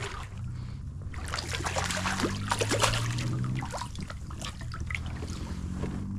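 A hooked sheepshead splashing at the water's surface beside a kayak as it is grabbed by hand and lifted out, a flurry of splashes and dripping water that is loudest about two to three seconds in and then tails off.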